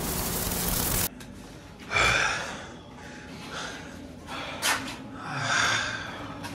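About a second of hissing VHS tape static, then two loud rasping breaths, the first sudden and fading, the second swelling and falling away about three and a half seconds later.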